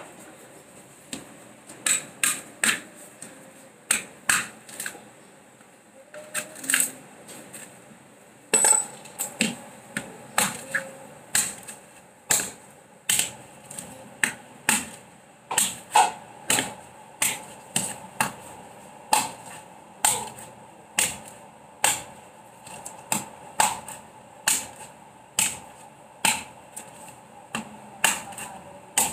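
A bolo knife striking the shell of a husked mature coconut again and again to crack it open. Sharp knocks, a few spaced out at first, then coming steadily about one a second from about a third of the way in.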